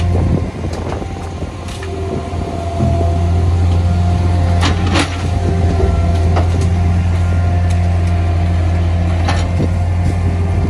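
Mustang skid-steer loader's engine running steadily under load, getting louder about three seconds in, with a few sharp knocks as its grapple handles branches and green waste.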